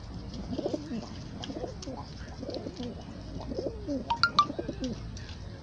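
Domestic pigeons cooing in a run of low, bending calls, with light clicks of beaks pecking seed from a hand. There is a brief sharp squeak about four seconds in.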